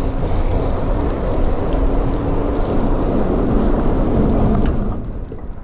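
Wind buffeting the microphone on a moving electric fat bike, a loud low rumble mixed with the hiss and crunch of fat tyres rolling through fresh snow. It eases off sharply near the end.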